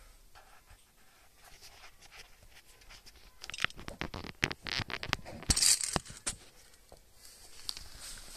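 Handling noise: after a quiet start, a quick run of sharp clicks, scratches and rustles about three to six seconds in.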